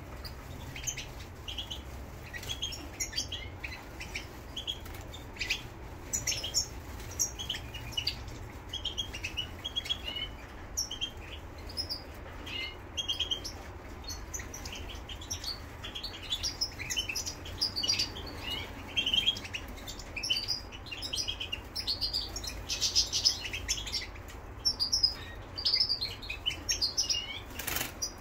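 European goldfinch of the parva race singing in a cage: a rapid run of short tinkling twitters and chirps, busier in the second half. A single sharp click comes near the end.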